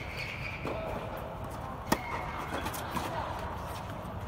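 Tennis ball struck by a racket: one sharp pop about two seconds in, with a softer knock of a ball bounce earlier, echoing over a steady low hum in an indoor tennis hall.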